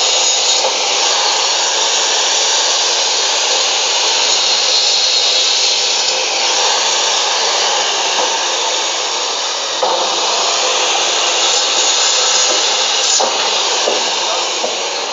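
Homemade bone-cutting machine built on a 2000-watt Maktec cut-off saw, running at full speed with its 7-inch, 100-tooth blade sawing through beef bone and meat as pieces are fed in. A loud, steady noise.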